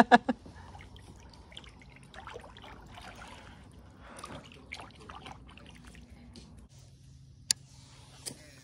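Water trickling and dripping beside a plastic fishing kayak, with faint small knocks of handling. A single sharp click comes about seven and a half seconds in.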